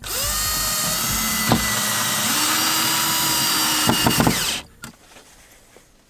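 Cordless drill running steadily for about four and a half seconds, driving a screw to fix metal strapping; its whine rises as the motor spins up, shifts in pitch about two seconds in, and cuts off suddenly.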